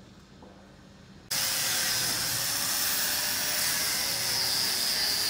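A low room hush, then about a second in a loud steady hiss cuts in abruptly, carrying a thin high-pitched whine: the running noise of factory machinery or air handling.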